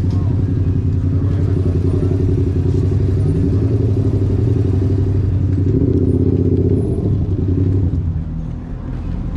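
Yamaha MT-07 parallel-twin engine through a Toce aftermarket exhaust, running at low, fairly steady revs. The pitch rises slightly about midway, and the engine falls off and quietens near the end.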